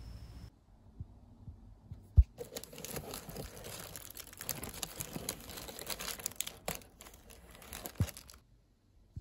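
Honeycomb kraft paper packing wrap crinkling and rustling as it is handled and pulled open, a dense crackle of small clicks for about six seconds. A sharp thump comes just before the crinkling starts and another near its end.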